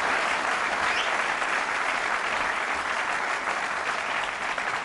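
Large arena audience applauding steadily, a dense wash of many hands clapping.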